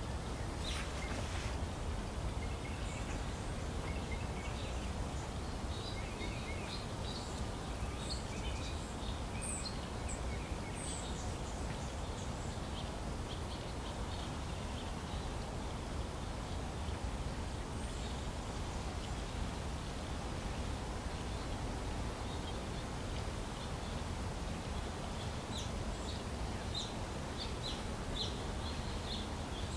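Outdoor garden ambience: a steady low rumble and hiss, with short, high bird chirps scattered through it, most of them in the first third and near the end.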